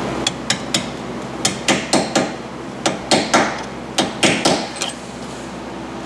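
Hammer striking a punch to drive a C-clip onto the metal hinge pin of a Honda Odyssey sliding door's center roller hinge. About fifteen sharp metal taps come in quick groups of three or four until the clip seats.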